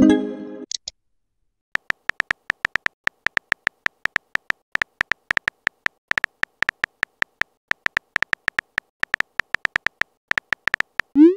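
Simulated phone-keyboard typing sounds: a rapid run of short, identical electronic key clicks as a text message is typed letter by letter. A brief chiming message sound comes at the very start, and a short rising swoosh comes just before the end, as a message is sent.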